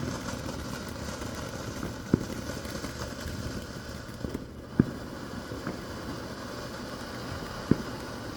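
Three single distant firework bangs, a few seconds apart, over a steady background rumble.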